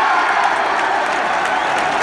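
Large football stadium crowd cheering and clapping: a steady wash of many voices and hands.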